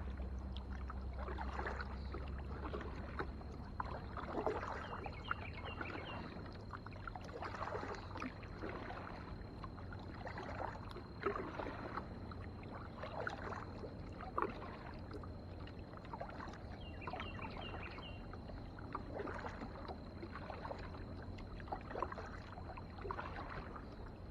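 Kayak paddle strokes dipping and splashing in the river, about one stroke every second and a half, over a steady low hum.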